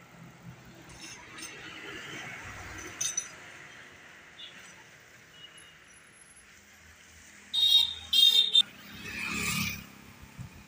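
Roadside traffic ambience. About three quarters of the way in, three short, loud, high-pitched beeps, then a rushing noise that swells and fades.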